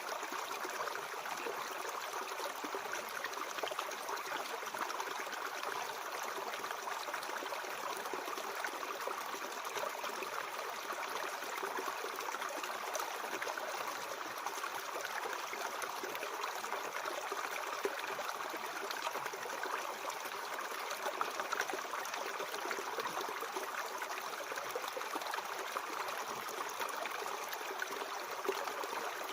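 Mountain stream flowing steadily, a continuous trickling water sound with no breaks.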